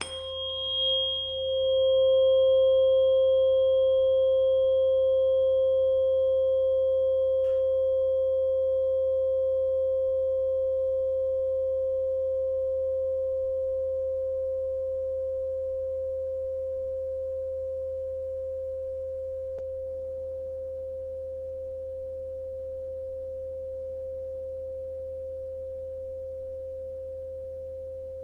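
A 528 Hz tuning fork rings as one steady pure tone and slowly fades. A fainter, higher ring dies away over the first several seconds.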